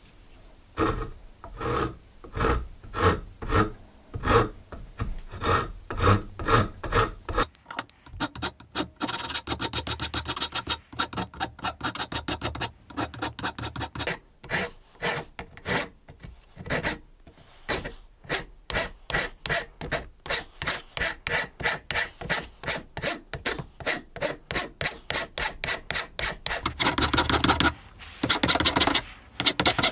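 Hand saw cutting an oak block with steady back-and-forth strokes, about two a second. From about eight seconds in, a file rasps the end of the oak with quicker, brighter strokes, shaping it round, and grows louder near the end.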